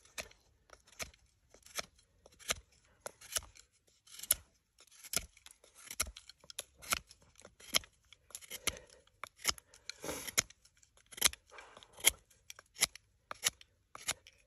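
Puukko knife blade shaving wood, carving a point on the end of a stick with a long series of short slicing strokes, mostly under a second apart, a few of them longer scrapes.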